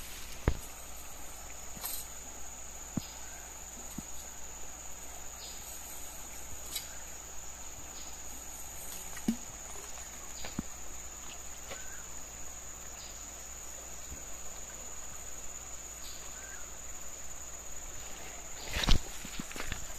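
Steady high-pitched drone of insects over the faint wash of a shallow river, with scattered light clicks and knocks. A louder short thump comes near the end.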